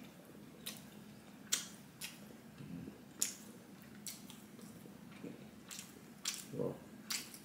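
Close-up chewing and lip-smacking while eating a slice of bread with spread: irregular short wet mouth clicks, a few a second, with a brief low hum from the mouth near the end.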